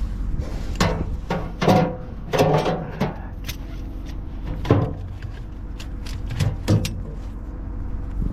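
A run of sharp clunks and knocks, about seven, spaced unevenly, over a steady low hum.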